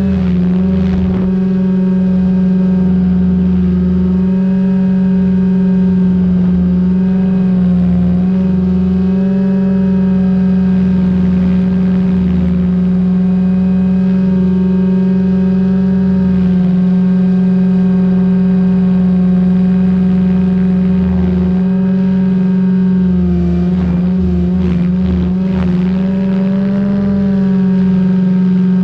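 SAB Goblin 500 electric RC helicopter in flight, heard from its tail boom: a loud, steady whine of the motor and spinning rotors at near-constant pitch, with an uneven low rumble underneath. Near the end the pitch briefly sags and wobbles as the helicopter manoeuvres.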